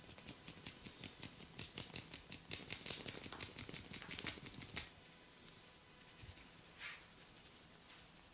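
Fingers working through hair against the scalp in a head massage, making a fast run of dry crackling clicks for about four and a half seconds before stopping. A single short scrape follows a couple of seconds later.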